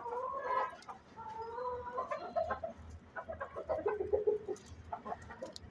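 Hens clucking, with a few drawn-out calls among shorter clucks.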